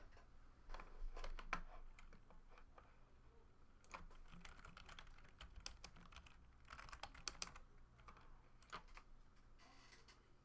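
Faint typing on a computer keyboard, in several short bursts of key clicks.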